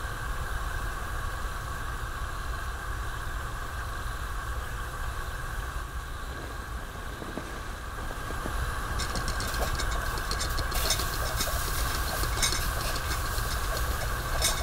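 Gas camping stove burning under an enamel teapot, a steady hiss over a low rumble, as the water heats. From about nine seconds in, crackling from the heating teapot grows louder.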